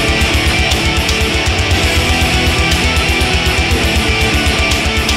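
Heavy rock music with electric guitar over a fast, steady bass-drum beat.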